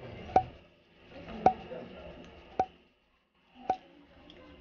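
Four sharp clinks, evenly spaced about a second apart, each with a brief ring.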